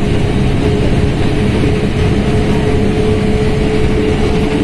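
Mercedes-Benz OF1721L BlueTec 5 bus's diesel engine running steadily at medium revs while under way, with a steady whine running through it.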